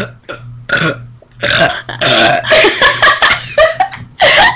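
A young woman burping after gulping carbonated ginger ale: a short burp about a second in, then a long, loud, rough burp lasting about three seconds, broken into several pulses.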